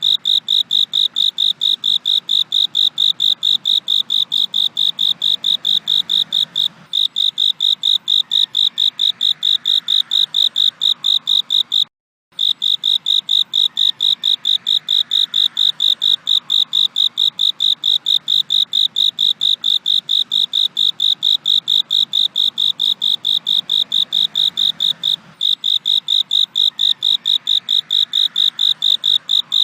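Cricket chirping in a fast, steady, even rhythm of high pulses. The sound cuts out completely for a split second about twelve seconds in, then resumes unchanged.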